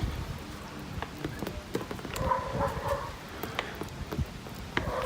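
Water splashing and dripping during a hand car wash, with scattered small knocks and a short animal whine about two seconds in.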